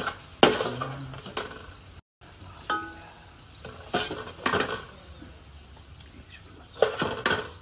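Serving spoon knocking and scraping against a large aluminium cooking pot as a topping is spooned over layered fish and potatoes: a series of sharp clinks, one of them ringing on briefly about three seconds in.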